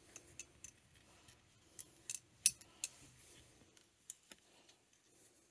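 Scattered sharp clicks and light metallic clinks from small engine parts and tools being handled on a workbench, with the loudest few about two to three seconds in.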